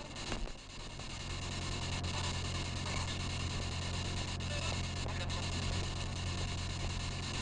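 Spirit box radio sweeping through stations: steady static hiss over a low hum, broken by faint clicks and fleeting voice-like fragments that the user captions as spirits saying "who came in?" and "really?".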